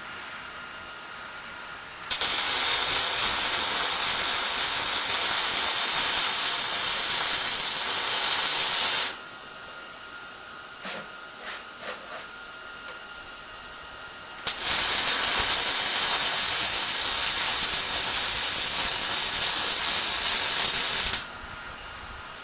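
Miller electric welder laying two weld beads: two runs of steady, loud arc hiss, each about seven seconds long. Between them come a few light clicks.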